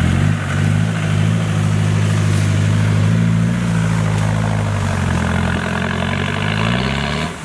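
Land Rover Defender engine revving hard under load as it climbs a loose, leaf-covered slope with its wheels spinning. The revs hold high, then ease off and drop near the end.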